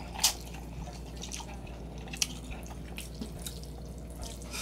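Close-up wet mouth sounds of someone eating instant noodles in broth: small wet clicks of chewing and slurping, with a sharper click about a quarter second in and another about two seconds in, over a steady low hum.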